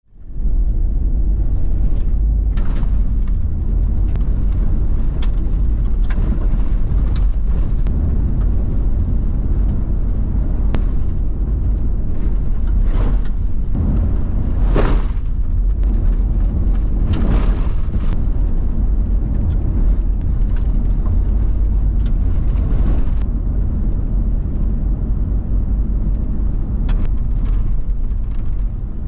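Vehicle driving, heard from inside the cab: a steady low rumble of engine and road noise. Scattered knocks and rattles come through as it bumps along a rough dirt track, and they die away a few seconds before the end.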